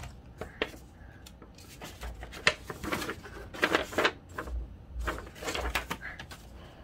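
A folded paper poster being unfolded and handled, rustling and crinkling in short irregular bursts, with a few sharp clicks.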